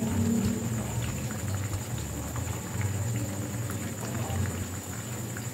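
Breaded chicken pieces frying in hot oil in a pan: the oil sizzles steadily with scattered small crackles and pops, over a steady low hum.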